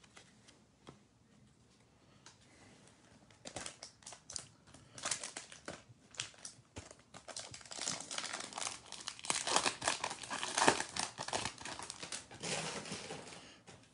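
A foil Topps Chrome trading-card pack wrapper crinkling as the pack is torn open and the cards pulled out: a run of crackles that starts about three and a half seconds in, is busiest in the middle and thins out near the end.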